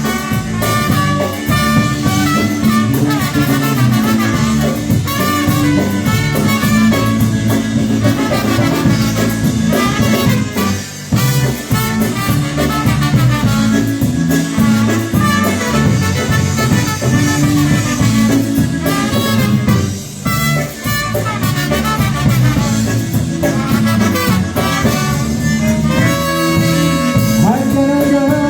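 Live dance band playing an instrumental break between sung verses, over a steady, repeating bass rhythm.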